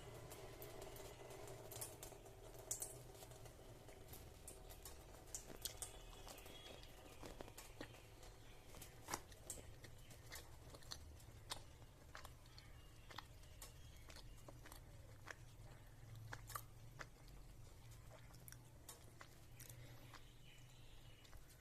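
Faint, scattered clicks and soft taps, irregularly spaced, over a steady low hum.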